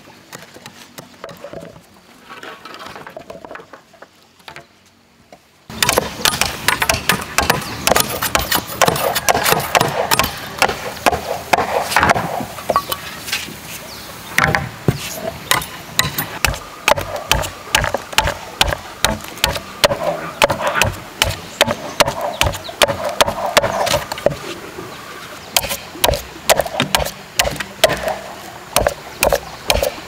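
Machete chopping the end of a green wooden pole to a point to make a fence stake: a rapid, repeated run of sharp chopping strokes that starts about six seconds in.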